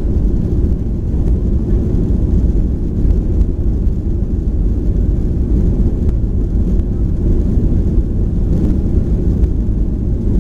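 Cabin noise inside a Boeing 737-900: a loud, steady low rumble from its CFM56 jet engines and the airframe, with no distinct events.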